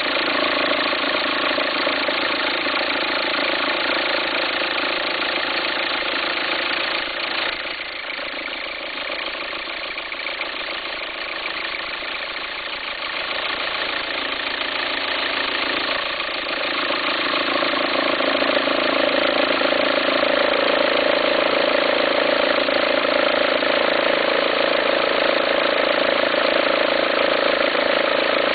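2004 VW Passat 1.9 TDI four-cylinder turbodiesel idling with a farting, rumbling noise. It dips quieter for several seconds partway through, then comes back louder. The belt appears to jump when the noise happens, which the owner suspects is a worn alternator pulley.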